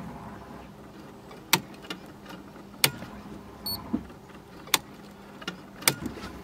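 In-tank electric fuel pump running with a steady low hum, ignition on and engine off, priming the fuel system. Sharp clicks about every one to two seconds, and a brief high beep just before four seconds in.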